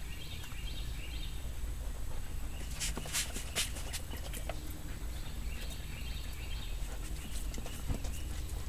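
Golden retriever licking at an outdoor hose faucet: irregular wet tongue clicks and slurps, with a cluster of sharper clicks about three seconds in.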